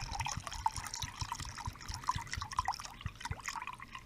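Blackening solution trickling and dripping in a small container, a steady patter of small drips and splashes.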